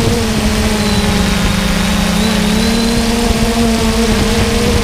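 The electric motors and propellers of a 3DR Solo quadcopter drone run in flight, heard from the GoPro mounted on the drone. It makes a steady buzzing hum over a broad hiss, and the pitch shifts slightly as the motors adjust.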